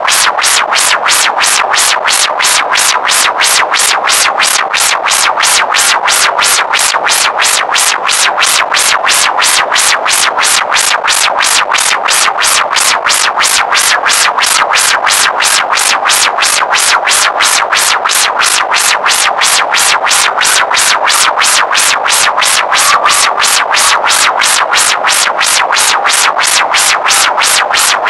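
Synthesizer music with a steady, fast pulse of about three beats a second.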